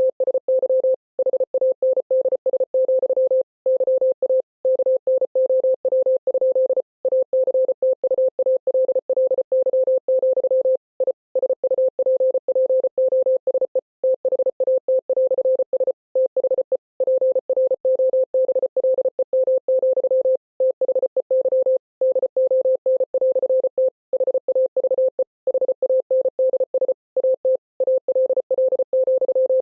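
Morse code sent as a single mid-pitched beep, keyed on and off very rapidly in dots and dashes, with slightly longer gaps here and there between letters or words.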